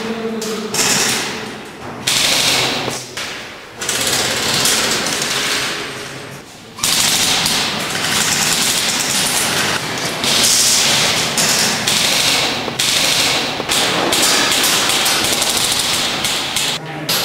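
Airsoft guns firing rapid full-auto bursts, a fast rattling clatter, with short pauses during the first seven seconds and then near-continuous fire.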